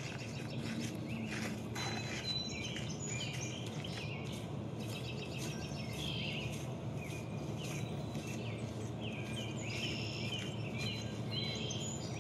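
Outdoor ambience: birds chirping repeatedly over a steady low background noise.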